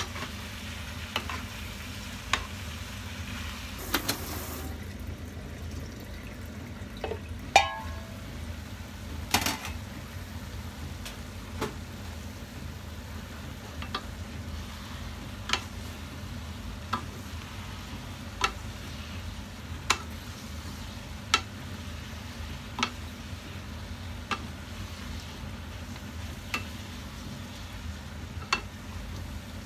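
Vegetables and chicken frying in a frying pan with a steady low sizzle as they soften, stirred with a wooden spatula that knocks against the pan about every second and a half. One louder clank with a brief ring about seven seconds in.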